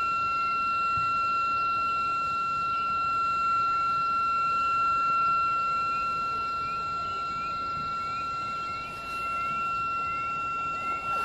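A steady high-pitched tone with a fainter higher overtone, over a constant hiss, with faint short rising chirps repeating through the middle.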